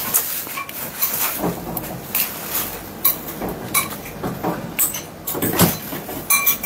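Dry, brittle shells of sweet tamarind pods cracking and crunching as they are peeled by hand, an irregular run of small crackles and snaps.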